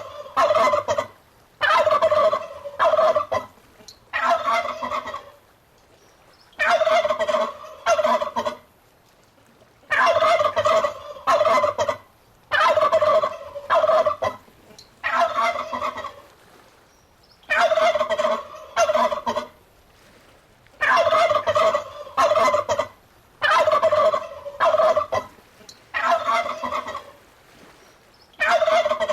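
Turkeys gobbling over and over: about a dozen rapid, rattling gobbles, each a second or so long, with short pauses between them.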